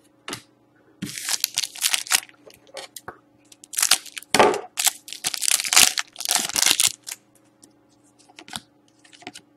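Scissors cutting open a Panini Select hockey card foil pack, the wrapper crinkling loudly in several spells over the first seven seconds, then soft clicks as the cards are slid out.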